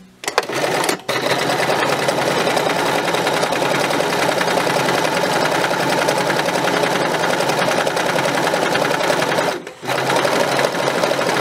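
Electric domestic sewing machine stitching through two layers of cotton. It starts with a couple of short bursts, then runs steadily, stopping briefly near the end before running again.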